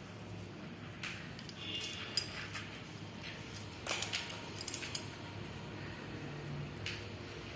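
Cats and kittens eating dry kibble from a plastic tray: scattered sharp clicks and crunches of kibble pieces, the loudest about two seconds in and a quick run of them around four to five seconds.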